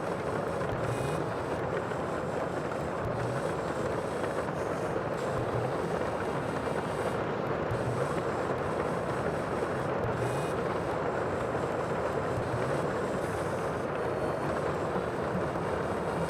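Steady rushing noise of the sea, with no separate waves breaking out of it.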